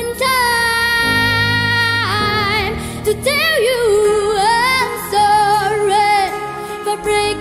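A young girl singing a slow song: one long held note for about two seconds, then melodic runs with vibrato.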